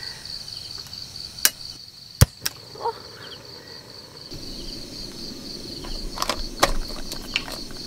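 Crickets chirping in a steady, high pulsing trill, with a few sharp clicks and knocks; the loudest comes a little after two seconds. A low rushing noise comes in about halfway through.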